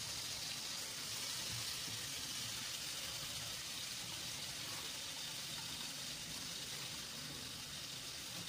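Homemade garlic and hamonado longganisa sausages sizzling in hot oil in a frying pan, a steady high hiss that eases off slightly toward the end.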